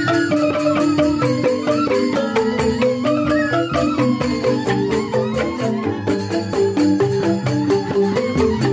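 Joged bumbung gamelan: bamboo xylophones (grantang) playing a fast, dense run of struck notes, with kendang barrel drums underneath.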